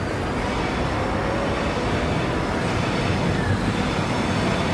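Steady low rumble of a train, growing slightly louder as it approaches.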